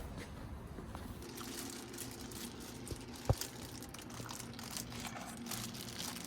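Small clicks and rustles of tableware and eating at a table, with one sharp knock about three seconds in, over a faint steady hum.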